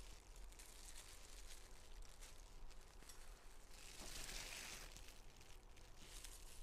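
Near silence, with faint rustling and a few small clicks from food being handled at the table, and a brief soft rustle about four seconds in.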